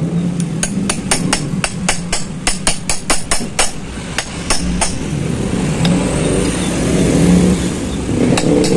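Hammer tapping on steel crankshaft parts, quick light strikes about five or six a second for about three seconds, thinning out, then a short run of strikes near the end. A steady low hum runs underneath.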